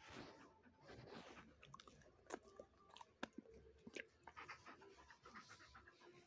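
Faint panting of a golden retriever, with a few sharp clicks scattered through the middle.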